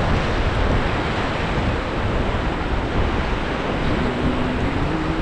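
Steady rush of river water from a raft on the Ganges, with wind buffeting the microphone.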